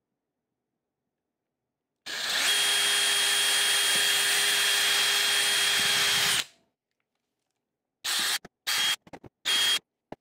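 Cordless DeWalt drill with a 1/8-inch bit drilling a hole through a plastic container lid. It makes one steady run of about four seconds with a constant motor whine. Then come several short trigger bursts near the end.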